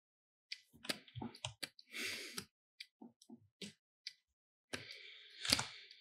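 Scattered light clicks from working a computer's input device at the desk, with a short breathy noise near the end.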